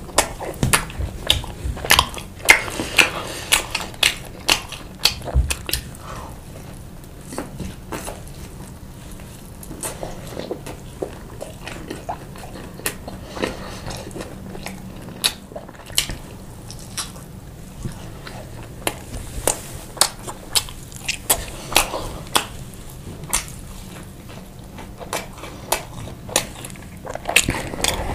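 A person eating chicken and pasta with sauce close to the microphone: chewing and biting, with many irregular sharp clicks, busier in the first few seconds and again near the end.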